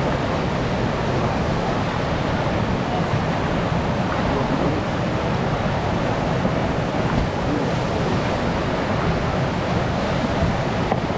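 Steady rush of whitewater pouring through a river rapid.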